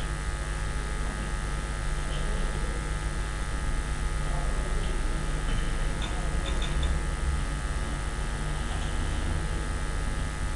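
Steady electrical buzz over a low mains hum, unchanging throughout, with a few faint ticks.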